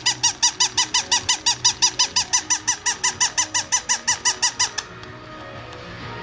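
Battery-operated Iwaya plush chihuahua toy giving a fast run of high, squeaky electronic yips, about six a second, which stops abruptly about five seconds in.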